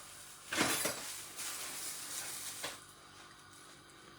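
Kitchen utensil and pot handling as black pepper is added to a pot: a loud scrape-like clatter about half a second in, softer rustling and clinking after it, and a knock near three seconds.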